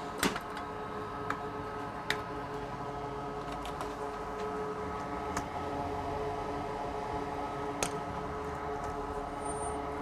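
Steady hum of running workbench equipment, with several tones held together. A few sharp light clicks of tools being handled sit over it, the loudest just at the start.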